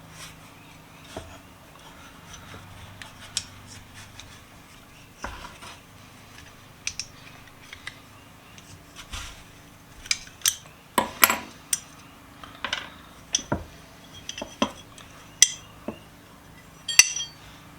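Metal clinks and knocks as a pair of Kraeuter 10-inch slip-joint pliers is taken apart by hand, with tools and loose parts tapping together. The clinks are scattered at first and come thicker and louder in the second half.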